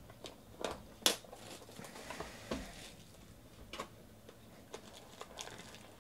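Trading-card packs and a cardboard card box being handled: a scatter of light clicks, taps and crinkling of a pack wrapper, the sharpest click about a second in.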